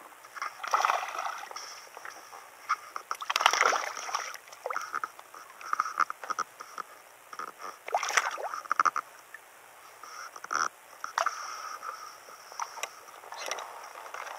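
Irregular water splashing and sloshing as a hooked largemouth bass is played at the surface and landed, with scattered knocks and handling sounds.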